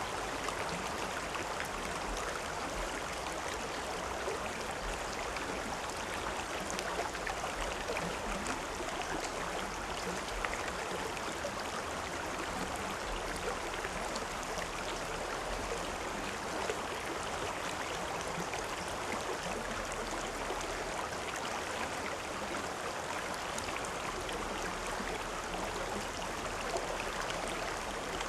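River or stream water flowing over rocks, a steady rushing with fine splashes and gurgles.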